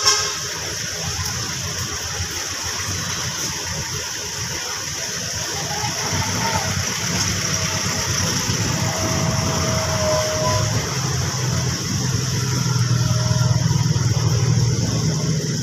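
A motor vehicle engine running, its low rumble growing louder in the second half, over a steady hiss.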